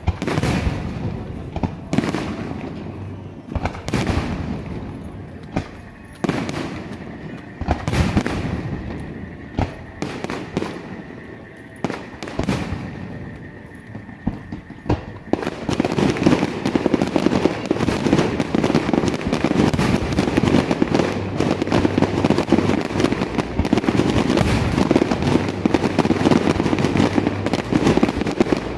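Fireworks display: separate bursts go off a second or two apart, each with a fading tail. About halfway through they give way to a dense, continuous barrage of overlapping bursts and crackling.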